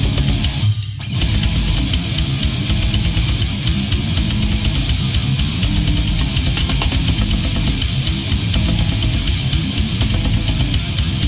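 Heavy distorted death crust metal: dense drumming under thick distorted guitars. About a second in there is a short break where only a low bass note carries before the full band comes back in.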